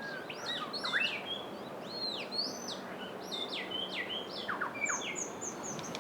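Birds singing: a busy run of short whistled notes that sweep up and down, some overlapping as if from more than one bird.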